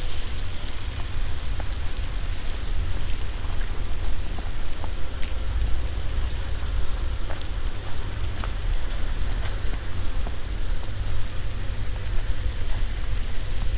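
Wind buffeting the microphone in a low rumble over a steady hiss of falling snow and sleet, with scattered faint ticks.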